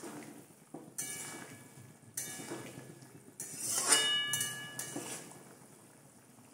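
Metal spatula stirring a wet curry in a metal kadai, knocking and scraping against the pan so that it rings: several strokes about a second apart, the loudest about four seconds in.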